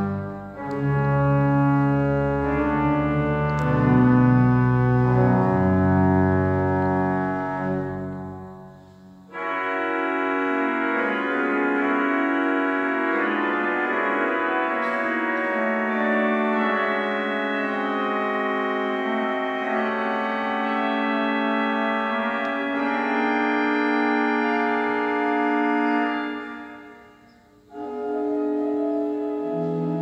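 Pipe organ playing sustained chords over deep pedal notes. About eight seconds in the chord is released and rings away in the church's reverberation. The playing resumes higher up without the pedal bass, breaks off again briefly near the end, and a low pedal note comes back in just before the end.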